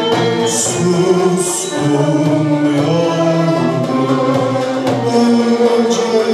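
A male soloist singing a slow Turkish art music (Türk Sanat Müziği) song, accompanied by violins and the rest of an instrumental ensemble.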